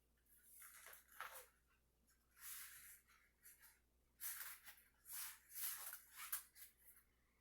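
Faint rubbing and rustling of a rubber bicycle tire and inner tube being handled, in a series of short scraping strokes that cluster in the second half.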